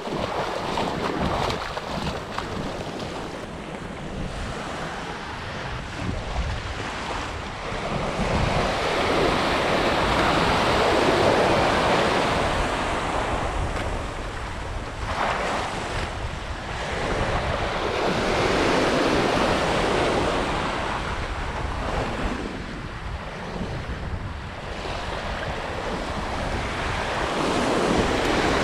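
Small ocean waves breaking and washing up a sandy beach, the surf swelling and fading in surges several seconds apart, with wind rumbling on the microphone.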